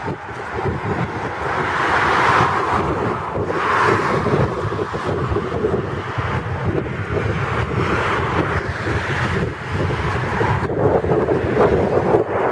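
Wind buffeting the camera microphone, with the tyre and engine noise of fast motorway traffic passing below, swelling and fading a few times.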